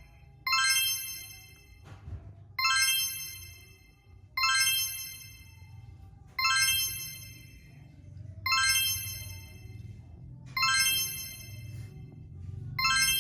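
A bright, bell-like electronic chime sounding about every two seconds, each note starting sharply and fading within a second or so, over a steady low rumble.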